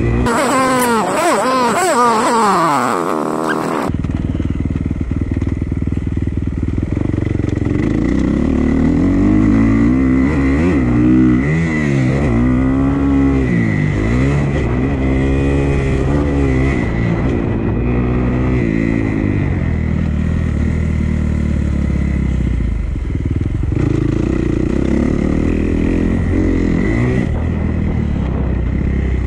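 Dirt bike engine running hard. Its pitch rises and falls over and over as the throttle is worked. About four seconds in the sound cuts abruptly to another stretch of the same kind of riding.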